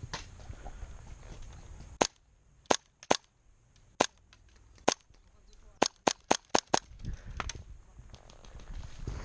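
Airsoft gun firing single shots: about eleven sharp cracks, beginning about two seconds in, with a quick string of five close together near the middle.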